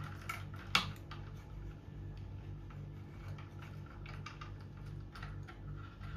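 Hand-cranked wooden automaton running: its wooden gear train, cams and linkages give off a stream of small, irregular clicks and knocks, with one sharper click about a second in.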